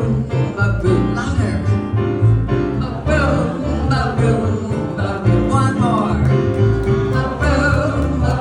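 Music: a woman singing held, wavering notes over piano accompaniment.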